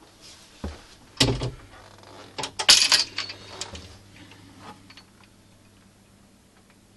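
Knocks and a rattling clatter from wooden cabin panels being handled. There is a clatter about a second in and a louder, longer rattle at about two and a half to three seconds, then a few lighter knocks, all over a faint steady hum.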